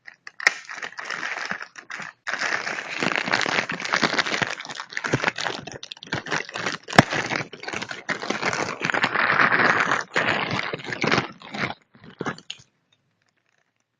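Plastic packaging crinkling and crackling as it is handled, with many sharp clicks and rustles; it stops shortly before the end.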